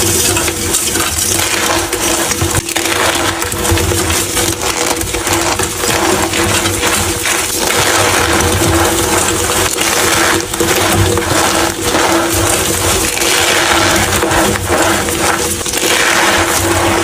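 Blocks of gym chalk being crushed, a dense run of crunching and crackling with many small snaps as the chalk crumbles.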